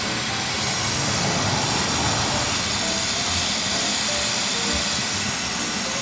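Steady hiss of a pressurized spray from an evaporator-washing nozzle, cleaning out a car's air-conditioning evaporator.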